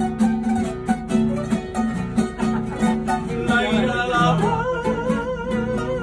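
Tuna ensemble playing an instrumental interlude: acoustic guitars strum a steady rhythmic accompaniment with a bandurria. About halfway through, a wordless voice comes in holding long notes with vibrato.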